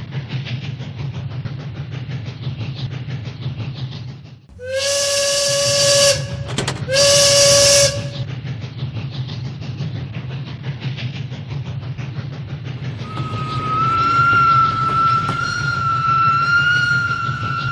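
Battery-powered Hello Kitty toy train running on plastic track, its small motor giving a steady drone. About five seconds in, two loud electronic steam-whistle blasts with a hiss sound, the first longer than the second. Later a sustained high, slightly wavering tone comes in and holds.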